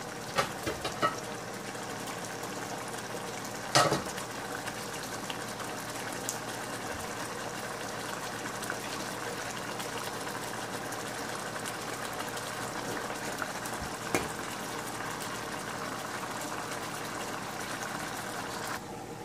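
Egg and chickpea curry boiling in a frying pan after stock has been added, a steady bubbling hiss. A few light clicks come near the start, a sharp knock about four seconds in and a smaller one around fourteen seconds, and the hiss drops off just before the end.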